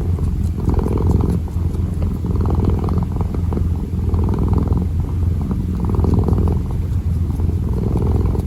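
Kitten purring: a steady low rumble that swells and eases with each breath, about once every one and a half seconds.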